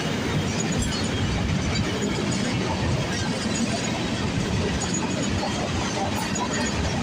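Steady noise of a freight train's cars rolling past on the rails.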